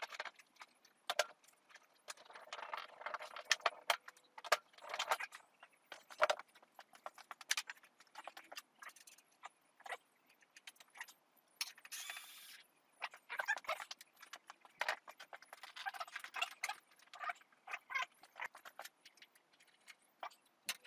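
Hand tools and metal fasteners clicking, clinking and rattling in quick, irregular succession as a motorcycle's fuel tank is being unbolted, with a short scraping hiss about twelve seconds in.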